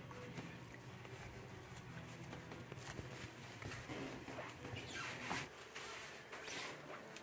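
Quiet room tone: a faint, steady low hum with a few soft, brief noises about four to seven seconds in.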